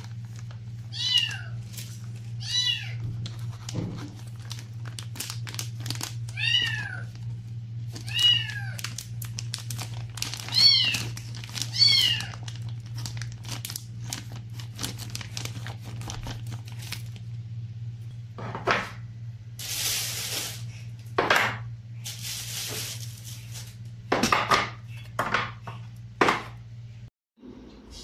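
A cat meowing about six times in the first twelve seconds, each a short call that rises and falls, over a steady low hum. Later come several louder bursts of rustling from a plastic bag as powder is poured out of it into a jar.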